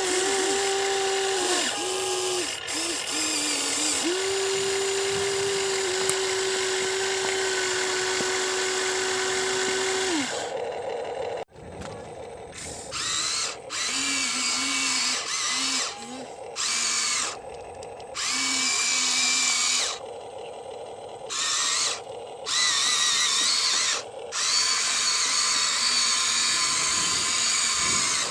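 Electric motors of a Huina 1593 radio-controlled excavator whining as it digs. The whine holds steady for about ten seconds, then comes in short on-off bursts as the controls are worked in turn.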